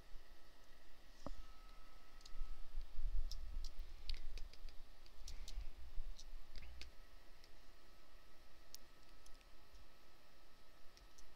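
Scattered light clicks of a computer mouse or pen placing the points of a polygonal lasso selection in Photoshop, over a faint steady background hum.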